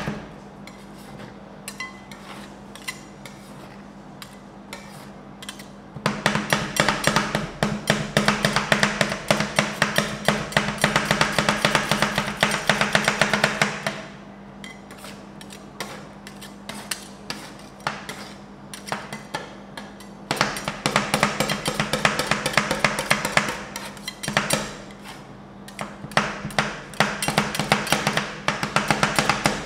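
Two metal spatulas chopping and tapping fast on a frozen steel ice-cream-roll plate, cutting dried persimmon into the setting cream. Softer scraping and ticking alternate with loud runs of rapid metallic tapping, the first starting about six seconds in, over a steady low hum.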